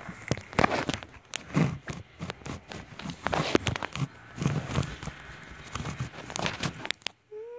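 Close rustling, scraping and knocking of things being handled right by the microphone, in irregular bursts with many sharp clicks.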